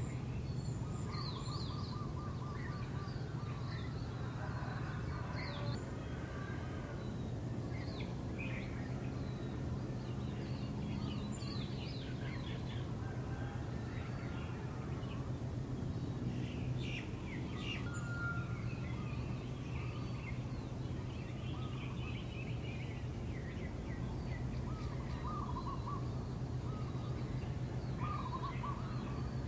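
Small birds chirping and calling in short, scattered bursts, over a steady low hum.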